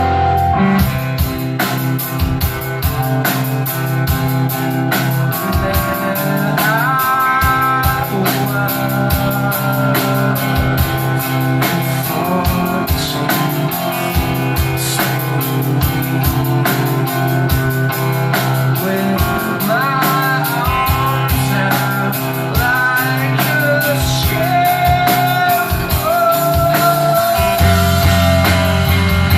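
Live rock band playing at full volume: a drum kit keeping a steady beat under sustained electric guitars and bass, with a sung melody line sliding between notes over the top.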